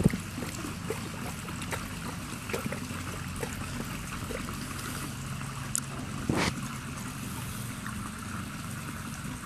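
Pool water sloshing and trickling around a large dog wading and lapping at the water, with small splashes and one clearer splash about six seconds in.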